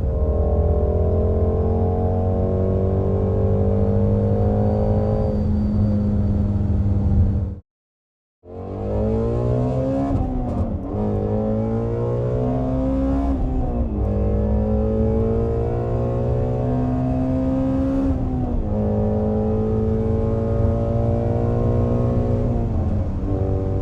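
Ford Shelby GT350's 5.2-litre flat-plane-crank V8 running through a Borla ATAK cat-back stainless exhaust, driven under load: the note climbs and drops back several times as it shifts through gears. The sound cuts out briefly about eight seconds in, then picks up again.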